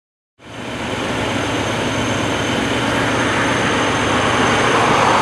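Heavy work vehicles' diesel engines running steadily, a low engine drone under a broad rushing noise that fades in about half a second in.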